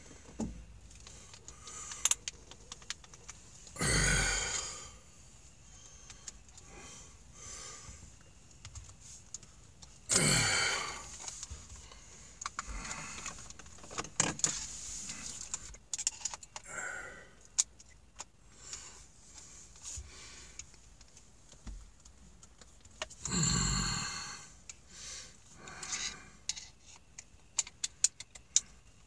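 Metal clicking and scraping of a screwdriver working at the stuck flat-headed screw inside a Makita drill's quick-release chuck, the screw refusing to come out. Three louder rushing sounds about a second long, heavy breaths of effort, come about four, ten and twenty-three seconds in.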